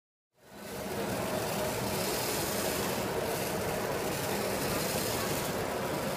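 Radio-controlled cement mixer truck model running: a steady mechanical hum over the even background noise of a busy exhibition hall. The sound fades in about half a second in.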